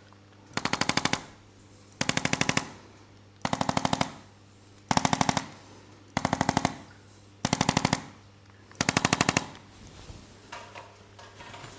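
Handheld spinal adjusting instrument firing rapid trains of mechanical taps on the vertebrae: seven short bursts, each about a dozen quick strikes, roughly one burst every second and a half.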